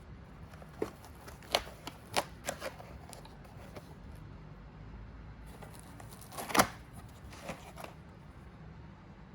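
A scattered series of short clicks and light knocks from small hard objects being handled. The loudest is a sharp knock about six and a half seconds in.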